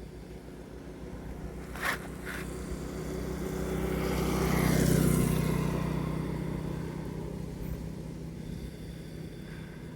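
A road vehicle driving past, growing louder to a peak about five seconds in and then fading away, its whine dropping in pitch as it goes by. Two sharp clicks come about two seconds in.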